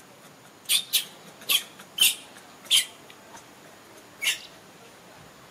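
Infant long-tailed macaque squealing: six short, shrill squeals in quick succession, the last one after a pause about four seconds in, as adult females pull it between them.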